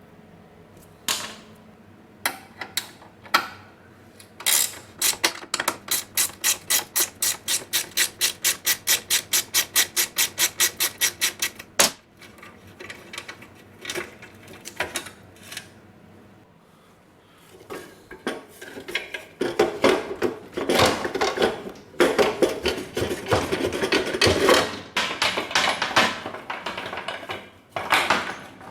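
Hand tools working on metal parts during disassembly. A few scattered knocks come first, then a long even run of sharp clicks, about four a second for some seven seconds, ending in one sharp clack. After a quieter spell comes a long stretch of scraping and rattling of metal.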